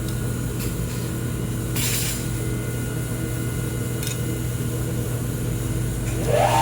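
Steady machine hum from an air-cooled handheld laser welder and its cooling fans, with a brief hiss about two seconds in and a few faint clicks.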